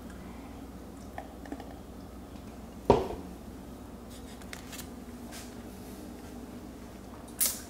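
Steady low room hum with faint small clicks and mouth sounds as a person sips a smoothie from a plastic cup, and one sharp knock about three seconds in.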